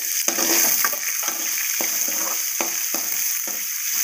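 Chopped onion, green chillies and curry leaves frying in hot oil in a metal kadai, sizzling steadily. A spatula stirs and scrapes them against the pan in short strokes about twice a second.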